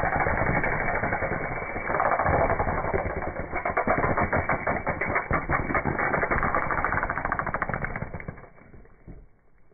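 Car tyre rolling over and crushing brittle objects: a dense run of rapid cracking and popping over a low rumble, muffled, thinning out and dying away near the end.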